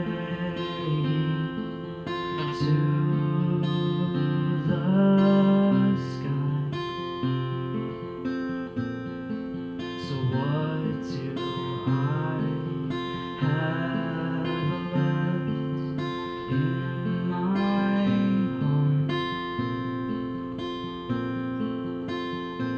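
Acoustic guitar played solo, chords and single notes ringing on, with sharp string attacks every few seconds.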